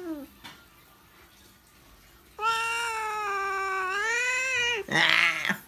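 Domestic cat yowling in protest at being held: a long, drawn-out meow of about two and a half seconds, then a short, harsh, rasping cry near the end, the loudest sound.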